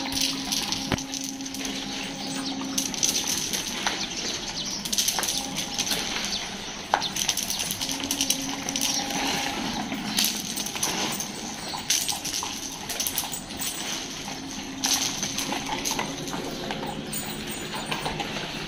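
Dogs moving about and eating on a hard tiled floor, with dry dog treats tossed onto the tiles: scattered small clicks and taps over a steady hiss and an on-and-off low hum.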